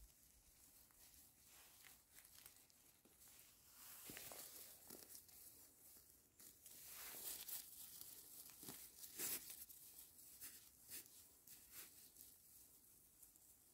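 Near silence with faint, scattered rustling and crackling, a little stronger about four, seven and nine seconds in.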